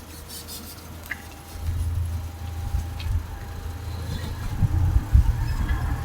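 Car running with a low, steady rumble, with a few dull thumps about two thirds of the way through.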